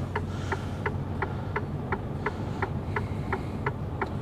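Truck cab with the diesel engine idling low and steady, and an even, rapid ticking signal from the dashboard, about three ticks a second.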